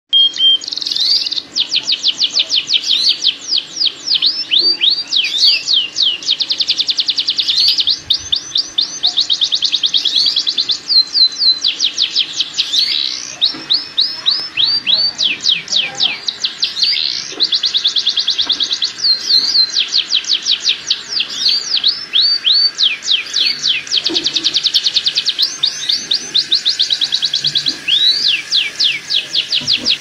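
Domestic canary, a male in breeding condition, singing without a break: long rolls of fast repeated sweeping notes, each trill giving way to a new one every second or two.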